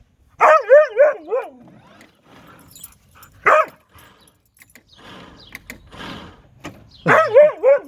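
A dog giving warbling, wavering yowls of protest at a lawn mower, rather than barking: a longer bout of about a second near the start, a short one in the middle, and another near the end.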